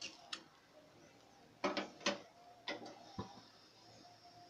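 Metal spatula working on a dosa on a hot dosa griddle: a handful of short clicks, knocks and scrapes of metal on the pan, the loudest a cluster about a second and a half to three seconds in.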